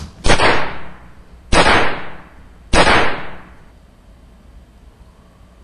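Three handgun shots, about a second and a quarter apart, each trailing off in a fading echo.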